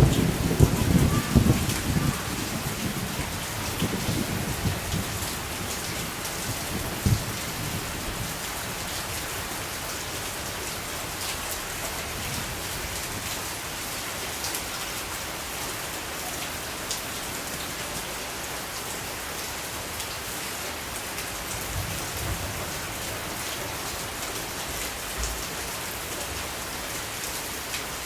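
Steady rain falling, with a low rumble of thunder in the first few seconds that dies away, leaving only the rain.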